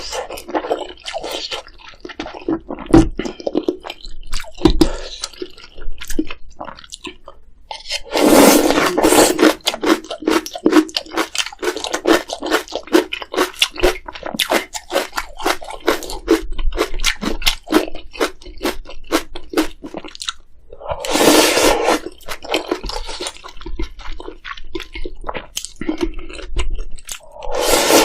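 Close-miked eating: chewing with dense, crunchy, wet clicks, broken by loud slurps of spicy ramyeon noodles about 8 seconds in, about 21 seconds in and again at the end.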